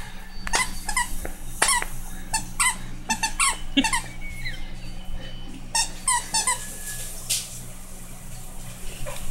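Squeaker inside a plush bone-shaped dog toy squeaking in quick runs as a dog chews and bites on it, the squeaks thinning out after about six seconds.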